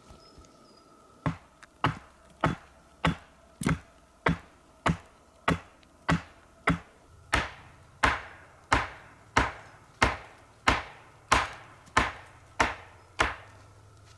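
Axe chopping wood: about twenty sharp, evenly paced blows, roughly one and a half a second, starting a little over a second in and stopping near the end.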